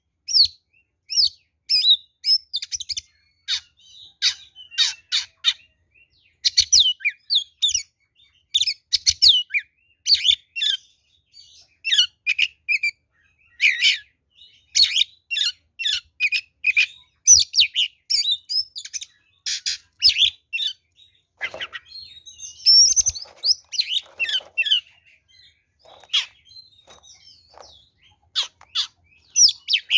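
Oriental magpie-robin (kacer) singing a loud, rapid song of high whistles, chirps and trills in short phrases with brief pauses, the fighting song used to provoke other magpie-robins to answer. The song turns quieter and sparser for a few seconds past the middle, then picks up again near the end.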